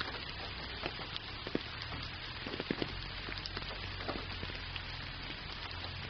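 Steady rain falling, an even hiss with scattered, irregular ticks of single drops.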